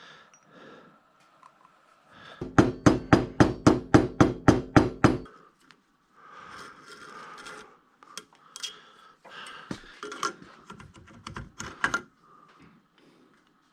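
A hammer striking metal about a dozen times at roughly four blows a second, each blow ringing, as bearings are tapped into place; then lighter clinks and clatter of metal parts being handled.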